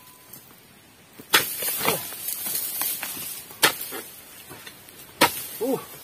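A dodos (long-handled oil palm chisel) jabbed into the base of a palm's fronds and fruit bunch: three sharp chopping strikes about two seconds apart, the first two followed by a rustling scrape of fibre and fronds.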